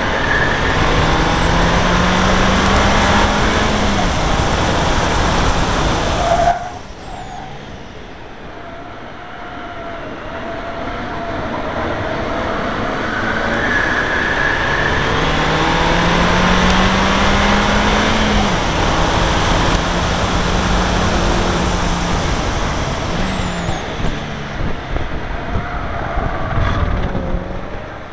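Seat Leon Cupra R's turbocharged four-cylinder engine pulling hard on track, its pitch climbing, over heavy wind and road noise. The engine note cuts off suddenly about six seconds in, then builds steadily again and eases off near the end.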